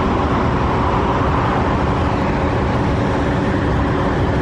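Steady low rumble of car engines and road traffic, with no single event standing out.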